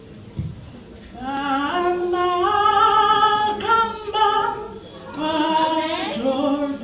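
A woman singing solo into a microphone in long, held notes, starting about a second in, with a brief break in the middle before she goes on.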